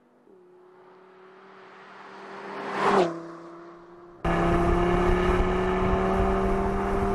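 The Audi TT RS Roadster's turbocharged five-cylinder engine on a steady note grows louder as the car approaches. Its pitch drops as it passes about three seconds in, and it fades away. After a sudden cut, the same engine cruises steadily, heard from on the open roadster under loud wind and road noise.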